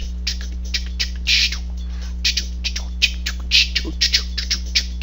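An embedded sound clip playing back: short, irregular high-pitched chirps or clicks, several a second, over a steady low electrical hum.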